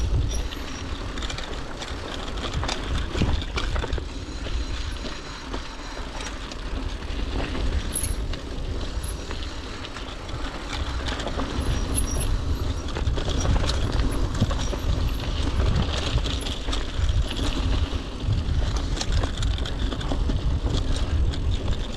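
Mountain bike rolling along a dirt trail: tyres crunching over packed earth and roots while the chain and bike rattle with the bumps, over a steady low rumble.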